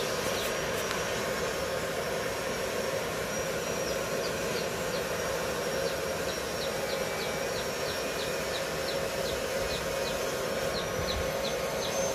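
Cooling fan of an Izumi MO 120 DC inverter arc welder running steadily: an even whir with a constant hum and a thin high whine. A short high chirp repeats about three times a second behind it.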